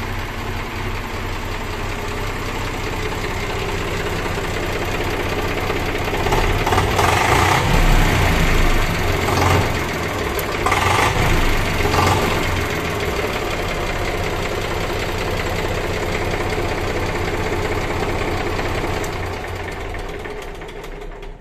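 Eicher 485 HD tractor's diesel engine idling steadily, with a few louder surges for several seconds around the middle.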